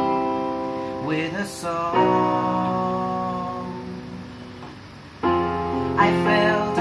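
Electronic keyboard playing held piano chords, with a man singing over them. A chord dies away slowly through the middle, and a new chord comes in about five seconds in.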